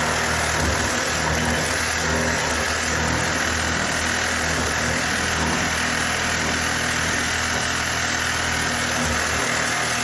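Reciprocating saw (Sawzall) running steadily at full speed, cutting through the car's metal lines.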